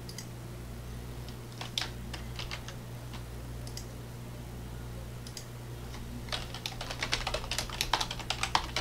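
Typing on a computer keyboard, entering a name: a few scattered keystrokes about two seconds in, then a fast run of keys near the end. A steady low hum runs underneath.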